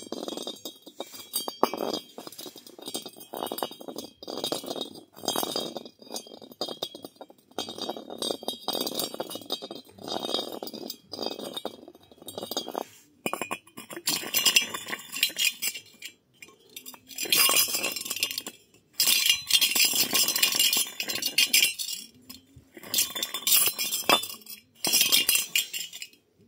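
Metal dome-shaped object spun by hand on rough concrete, clinking and rattling against the surface. It comes in short bursts of about a second each at first, then in longer spins of two to three seconds near the end.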